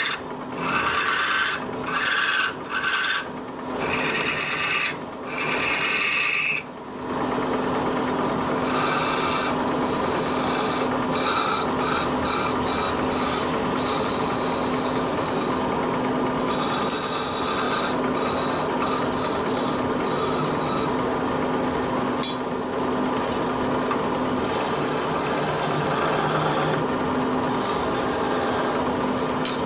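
A hand turning chisel scraping and cutting a spinning wooden spindle on a wood lathe, with the lathe's drive humming steadily underneath. For the first seven seconds or so the cutting comes in several short strokes with brief gaps between them, then it settles into a continuous scraping.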